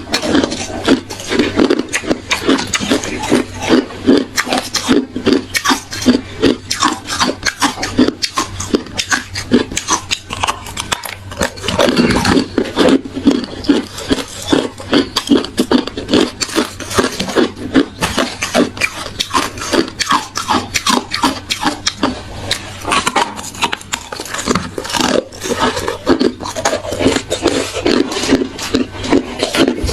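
Hard ice being bitten and chewed close to the microphone: a rapid, irregular stream of loud, sharp crunches, several a second, that never stops.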